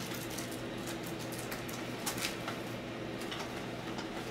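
Soft rustling and a few light taps from trading cards and mail envelopes being handled, over a steady low hum.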